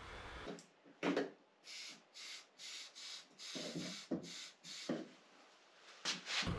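Aerosol can of zinc primer sprayed in a series of short, faint hissing bursts, each about a third of a second long, to mark the outline of a wheel-arch repair panel from behind.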